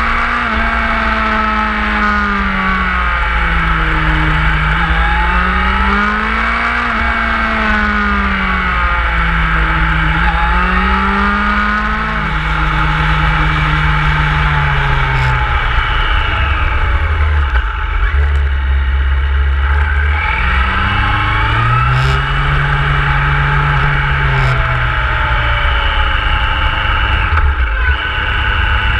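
Motorcycle engine on the move, its revs rising and falling again and again over a few seconds at a time, over a constant low wind rumble.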